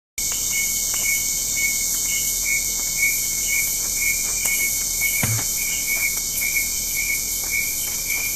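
Summer night chorus of insects: a dense, steady high-pitched shrill with a pulsing chirp repeating about twice a second, starting abruptly just after the beginning. A single low thump sounds about five seconds in.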